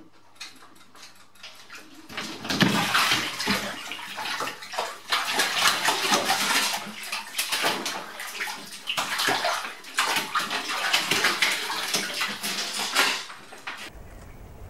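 A cat splashing and thrashing in a full bathtub, scrambling to claw its way out of the water. The splashing starts suddenly about two seconds in, comes in many rapid sloshes and slaps, and cuts off abruptly near the end.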